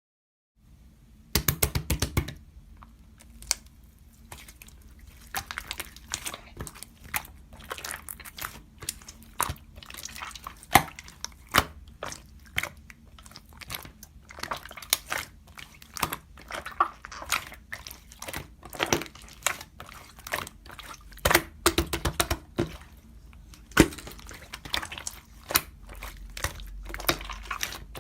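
Slime being squeezed, poked and stretched by hand, giving many irregular sharp clicks and pops, starting about a second and a half in.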